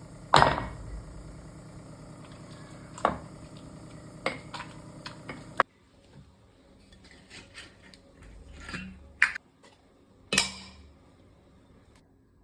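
Kitchen utensils clattering: a loud knock near the start, then a handful of sharper clinks and knocks. Under the first half runs a steady hum that cuts off abruptly a little past halfway.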